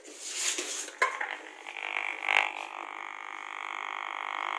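Audio output of a Gigahertz Solutions HFW 35C RF analyser, turning the microwave radio signals it picks up into sound. It starts as a crackling hiss, gives a sharp click about a second in, then settles into a steady buzzing tone.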